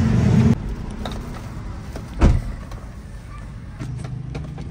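Plastic dashboard trim around a Toyota Vitz's factory stereo being pulled loose by hand: scattered small plastic clicks and creaks, with one dull thump a little over two seconds in. A loud low vehicle rumble in the first half second cuts off abruptly.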